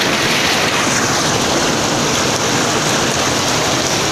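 Mountain stream rushing over rocks in a steady, continuous rush of white water.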